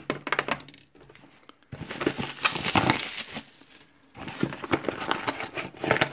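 Small brass lock cylinders and keys clicking as they are set down on a hard table, then cardboard and paper packaging rustling and crinkling in two stretches as a hand rummages inside a shipping box.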